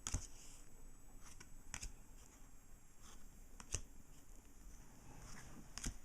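Trading cards being handled and laid down one by one, with four short clicks about two seconds apart over faint rustling.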